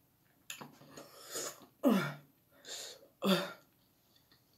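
A man coughing and clearing his throat repeatedly, about five short, sharp bursts, the loudest ending in a falling voiced grunt. It is a reaction to the burn of extremely spicy noodles.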